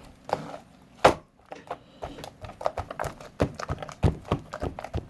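Slime being squeezed and worked by hand, making a quick, irregular run of sticky clicks and pops that comes thicker after the first second or so.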